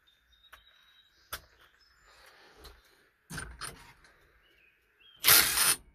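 Hand tools working the steering wheel retaining nut of a 1966 Mustang: scattered metallic clicks and knocks, then a loud clattering burst lasting about half a second near the end. Faint bird chirps sound in the background.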